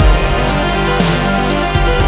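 Background music with electronic instruments and a steady beat.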